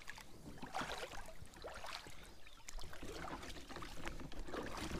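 Inflatable rubber boat being paddled in and landed: small water splashes with scattered light knocks and rustles from paddles and handling.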